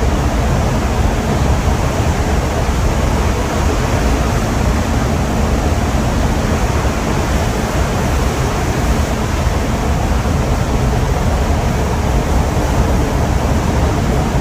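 Steady rushing noise of wind and water with a low steady hum underneath, unbroken throughout.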